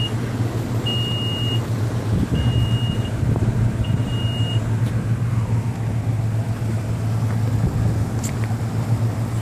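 Motorboat engine running at low speed with a steady low drone. In the first five seconds, a high electronic beep sounds three times, each about 1.5 seconds apart.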